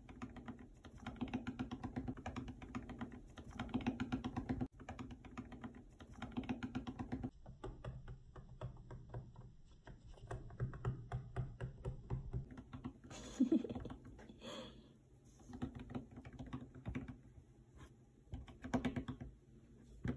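Faint, rapid tapping and ticking in short bursts of about a second each, like typing: a bushbaby's feet and claws pattering on a wooden tabletop as it moves about.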